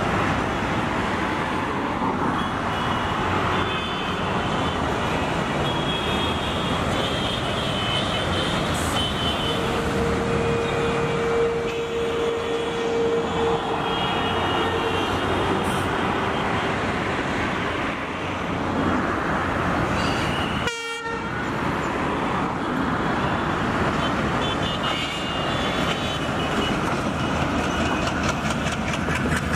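Diesel-hauled passenger train running along the track amid steady road traffic noise, with a horn sounding one long steady note about a third of the way in. After an abrupt break near two-thirds of the way through, the train runs past close by.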